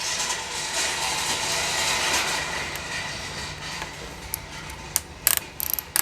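Hand tools and small screws being handled while the valve-body screws are taken out: a steady scraping and rustling, then several sharp clicks near the end.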